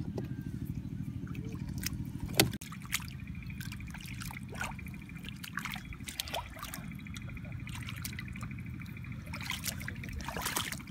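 Hands groping through shallow muddy water, with small splashes, trickles and squelches, and one sharp click about two and a half seconds in. A steady low rumble runs underneath.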